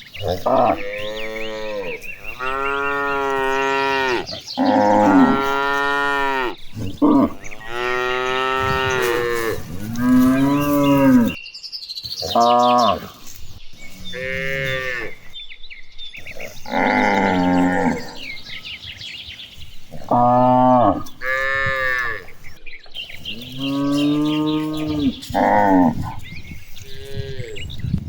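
A herd of cattle mooing again and again, about a dozen long calls, each rising and then falling in pitch, some of them overlapping.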